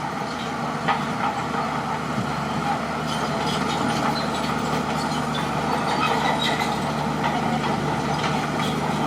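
Crawler bulldozer at work: its diesel engine runs steadily under load while the steel tracks clank and rattle.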